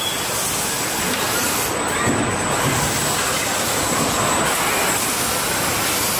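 Steady mechanical noise of an automated car-body assembly line, with industrial robot arms running as they move and handle body parts.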